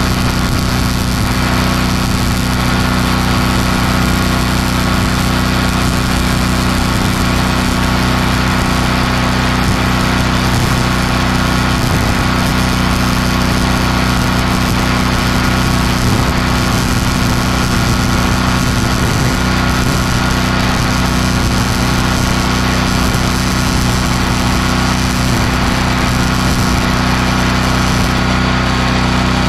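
A small engine running steadily at constant speed, with the crackling hiss of a MIG welder's arc as a steel pole is welded at its base. The arc hiss stops near the end.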